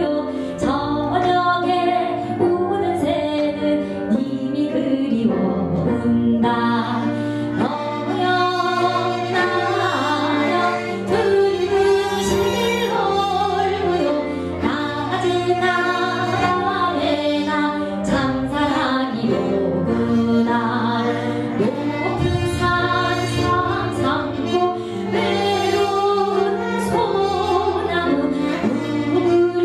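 A female Korean folk singer (sorikkun) singing a minyo into a microphone, with live accompaniment of piano and traditional Korean instruments; the voice bends and ornaments its notes over steady held tones from the band.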